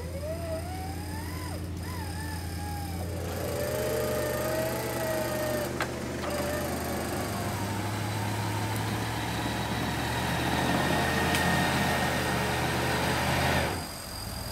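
Off-road 4x4's engine running steadily while the vehicle is winched up a muddy slope, with higher wavering tones over the engine hum. The sound grows louder and then cuts off abruptly near the end.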